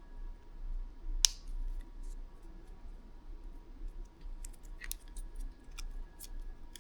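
Hand work on small parts: one sharp click about a second in, then a run of lighter clicks and snips, like plastic pieces or a small cutting tool being handled.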